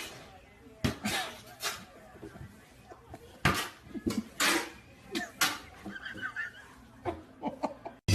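Short, scattered vocal sounds from a person, laughter-like, in a small room.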